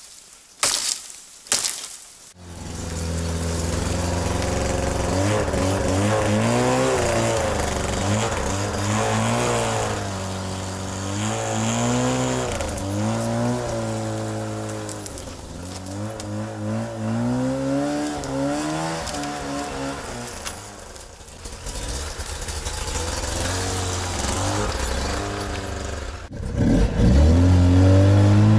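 Small vehicle engine running and being revved, its pitch rising and falling again and again as the throttle opens and eases off. A few sharp knocks come just before it picks up, and near the end it drops briefly, then runs louder and steadier.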